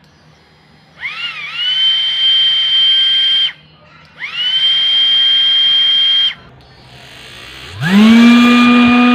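Repaired cordless drill's motor spinning up to a steady high-pitched whine twice, each run lasting about two seconds. Near the end it starts again with a lower-pitched steady hum.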